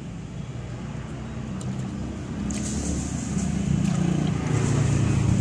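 Road traffic: a motor vehicle's engine running over a steady low rumble, growing louder from about halfway in.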